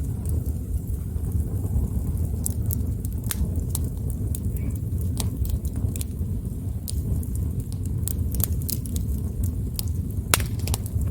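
Wood campfire burning: irregular sharp crackles and pops from the burning logs over a steady low rumble, with one louder pop near the end.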